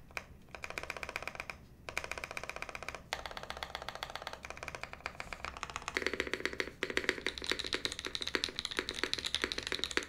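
Fast typing on a Bulwark custom mechanical keyboard with Mode Obscura switches, an aluminium plate, SkiiData keycaps and the bottom silicone dampening installed: a dense run of keystroke clacks, broken by brief pauses about two and three seconds in.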